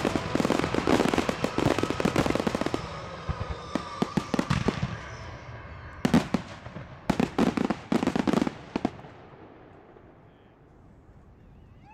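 Aerial fireworks display: a rapid barrage of bangs and crackles from shells and mines, easing off, then a second volley of loud bangs about six to nine seconds in, before dying away to a faint hiss.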